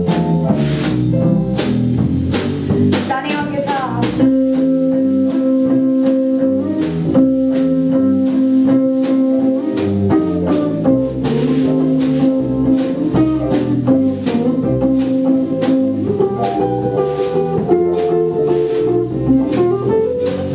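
A live band playing: electric guitar and keyboard over a drum kit, with long held notes from about four seconds in.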